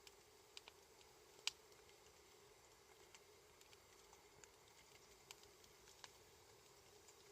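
Quiet wood fire crackling: sparse small pops and ticks, the loudest about a second and a half in, over a faint steady hum.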